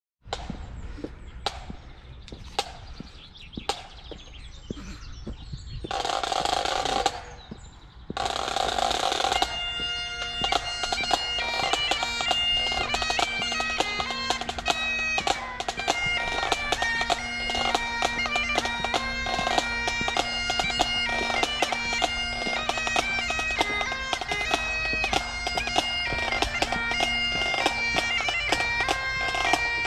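Great Highland bagpipes strike up about ten seconds in and play a tune over a steady drone. Before that, scattered clicks and two brief bursts of rushing noise.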